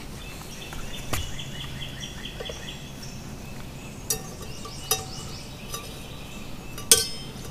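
Stainless steel billy pot clinking against its handles and the camp stove as it is lowered and set down: a few sharp metal clicks, the loudest near the end. Birds sing repeated chirping phrases in the background.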